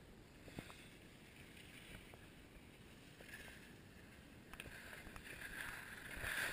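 Skis sliding over packed snow, a soft hiss that swells with the turns and is loudest near the end.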